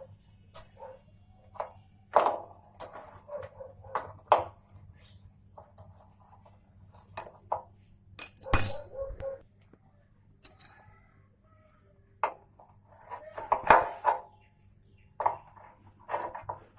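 Irregular metallic clinks and knocks of a spanner working on a motorcycle's rear-wheel and chain-adjuster nuts while they are loosened, with a few louder clanks, the loudest near the end.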